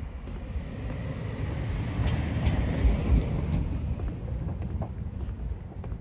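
Wind buffeting the microphone: a gusty low rumble throughout, with a hiss that swells and fades in the middle.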